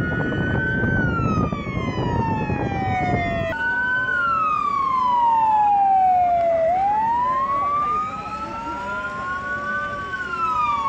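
Emergency vehicle siren wailing, its pitch sliding slowly down and back up over several seconds, with a second, fainter siren tone alongside. A heavy rumble lies under it for the first few seconds, until an abrupt change about three and a half seconds in.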